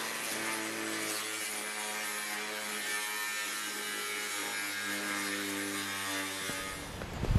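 Angle grinder with a cutting disc cutting a steel sheet: a steady motor tone under a hiss, stopping a little before the end.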